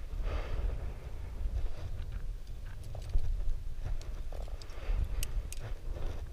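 Wind buffeting a head-mounted camera's microphone while a climber moves up the rock, with hands and shoes scuffing on stone and a few sharp clicks of climbing gear about five seconds in.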